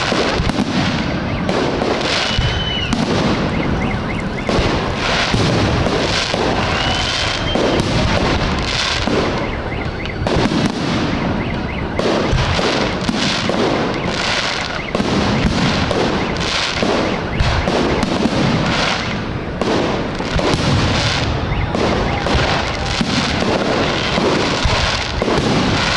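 Aerial fireworks display: a dense, unbroken run of shell bursts and crackling effects going off in quick succession.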